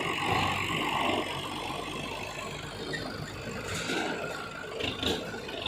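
Engine of a rice-threshing truck running steadily while it is manoeuvred into position, easing off right at the start from a louder run just before.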